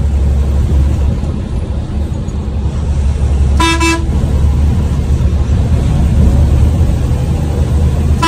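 Bus running on the road, its engine a steady low drone under road noise, with one short horn honk about halfway through and another starting at the very end.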